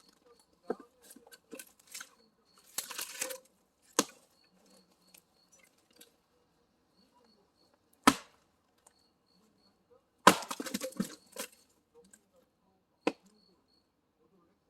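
Firewood being split with an axe: four sharp, separate strikes several seconds apart, one followed by a brief clatter of falling wood.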